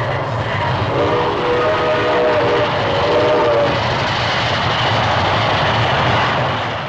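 Train whistle sounding a chord of several notes for about three seconds, starting about a second in, over the steady rumble and clatter of a running train. This is an old cartoon sound effect.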